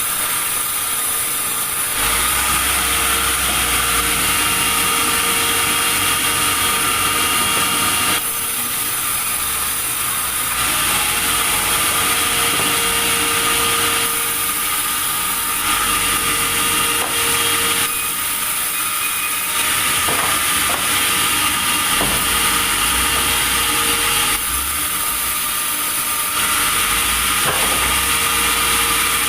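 Sawmill saw and machinery running steadily, the sound changing in character every few seconds.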